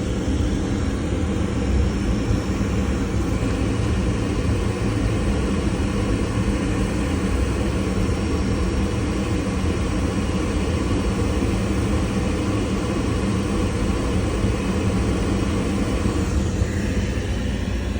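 Rinnai tankless water heater firing with one faucet open, its combustion fan and burner running steadily with a constant hum. At this single-faucet demand it runs normally, without flaming out.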